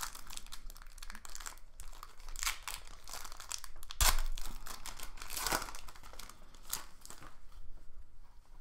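Foil wrapper of an Upper Deck Series One hockey card pack being torn open and crinkled by hand, with a loud sharp crackle about four seconds in.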